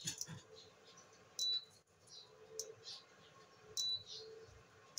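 Induction cooktop beeping, two short high beeps about two and a half seconds apart: the repeating warning that it does not detect the frying pan set on it. Faint scraping and clicking come between the beeps as the pan is shifted on the glass top.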